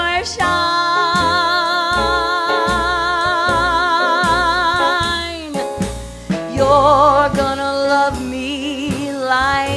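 Woman singing a long held note with wide vibrato for about five seconds, which slides down at its end, followed by shorter sung phrases. A small jazz band accompanies her.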